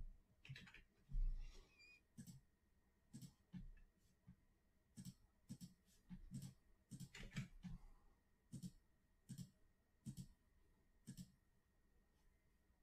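Faint computer mouse and keyboard clicks, about fifteen short clicks at irregular spacing, made while a list is copied and pasted into a spreadsheet.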